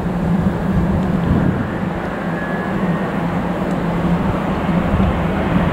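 Airbus A350's Rolls-Royce Trent XWB turbofan engines on final approach, a steady jet rumble and roar, with a brighter hiss coming in near the end as the aircraft nears.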